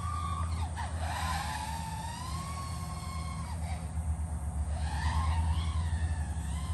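DJI FPV drone's motors and DalProp Spitfire props whining in flight, the pitch rising and falling several times as the throttle changes, over a steady low hum.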